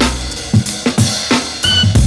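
Background music: a drum beat of kick and snare hits over a deep bass, with a brief high electronic tone near the end.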